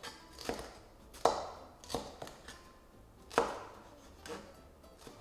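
Knife dicing red pepper on a cutting board: about five sharp chops at an uneven pace, the loudest about a second in and again near the middle.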